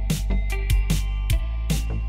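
Intro music with a steady drum beat over sustained bass and held notes.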